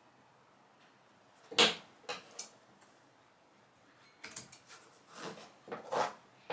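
Handling noises as a hardboard panel covered in carpet is worked on: a sharp knock about a second and a half in, two lighter knocks just after, then a run of short scrapes and rustles near the end.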